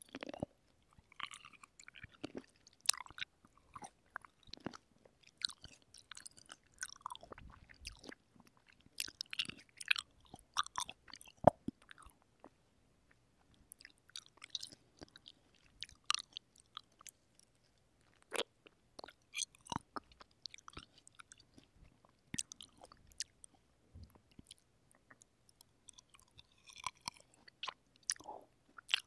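Close-miked chewing of fresh cherries: wet, squishy mouth sounds in bursts with short pauses, with occasional sharp clicks.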